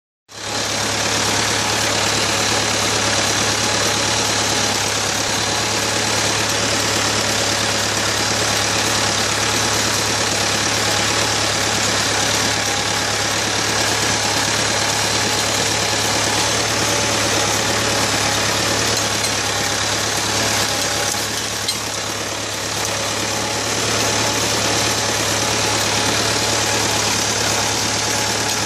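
Ford 5000 tractor engine running steadily while towing a loaded ground-driven manure spreader, the engine under load; it eases off briefly a little past two-thirds of the way through.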